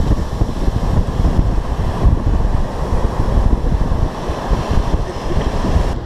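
Wind blowing across the microphone in loud, uneven gusts, with ocean surf washing in behind it.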